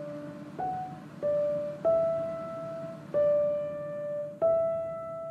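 Background piano music: a slow melody of single notes, five struck in turn, each ringing on and fading before the next.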